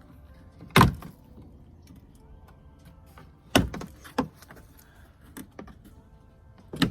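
Four sharp knocks and clacks of hard parts being handled, the loudest about a second in, over faint background music.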